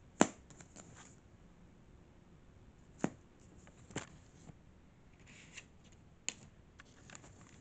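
Plastic DVD case being handled and opened: a sharp click just after the start, then a few fainter clicks and a brief rustle.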